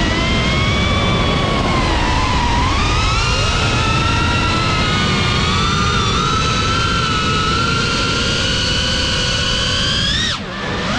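GEPRC CineLog 35 FPV drone's brushless motors and propellers whining, the pitch rising and falling with throttle over a rumbling rush of air. About ten seconds in, the throttle is cut for a moment: the whine drops sharply, then climbs straight back up.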